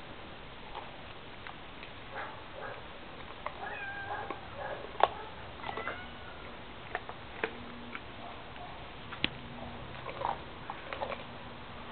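A Siberian husky chewing a raw whole chicken, with irregular sharp cracks and crunches of bone between her teeth, the loudest about five seconds in.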